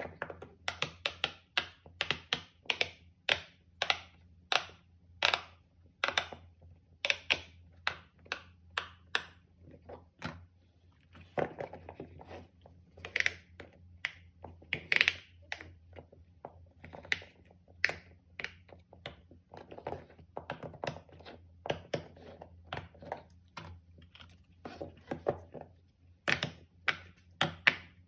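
Silicone pop-it fidget toys being pressed with the fingers, their bubbles popping in quick, irregular clicks, several a second.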